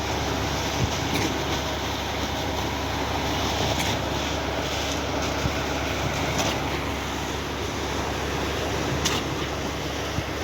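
Cifa K41XRZ truck-mounted concrete pump running under load: a steady engine drone with a sharp knock about every two and a half seconds, as the pump changes stroke.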